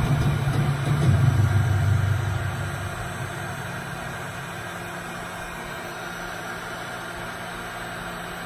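Handheld heat gun running steadily, its fan blowing hot air over wet resin. A louder low hum fades out in the first two or three seconds.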